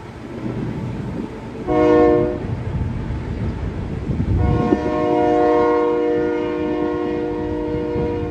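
Freight locomotive air horn sounding a chord of several notes: a short blast about two seconds in, then a long blast from about four seconds in, over the low rumble of a passing freight train of tank cars.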